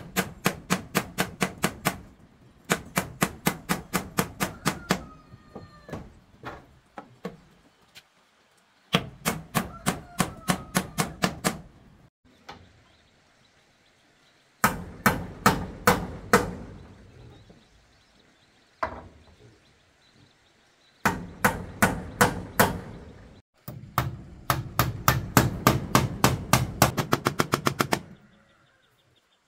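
Rapid runs of sharp strikes on wood, about five or six a second. Each run lasts two or three seconds, with short pauses between, and the last run is the longest.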